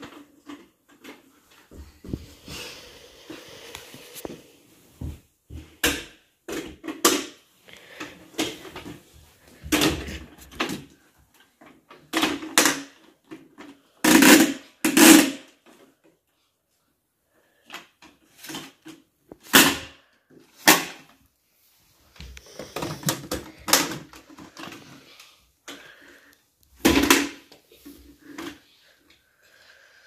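Irregular knocks and clatter of plastic toys being handled, a toy toothbrush and a toy vacuum cleaner, with a short pause about halfway.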